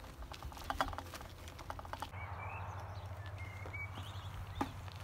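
Irregular sharp clicks and crunches of movement on a path outdoors, then, about two seconds in, steady wind rumble on the microphone with a few short bird chirps.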